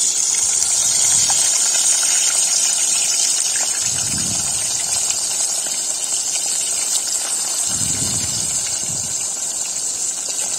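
Whole mrigal fish sizzling as they fry in hot mustard oil in an aluminium kadhai: a steady hiss with fine crackling.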